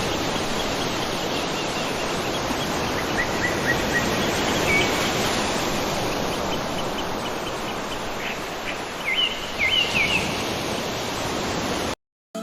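Steady rushing of a waterfall, with a small bird giving short chirps about three seconds in and again a couple of seconds before the end. The sound cuts off abruptly just before the end.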